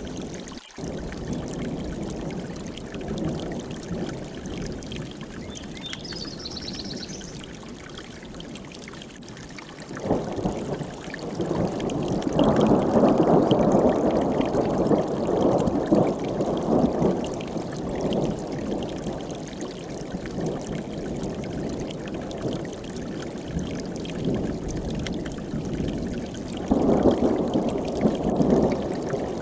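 A mountain stream rushing over rocks in a steady water rush, growing louder about ten seconds in and surging again near the end. A brief, faint high chirp sounds about six seconds in.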